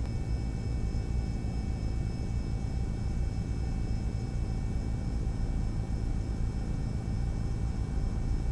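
Steady low rumble and hiss of bench background noise, with a few faint, steady high whining tones and no distinct knocks or clicks.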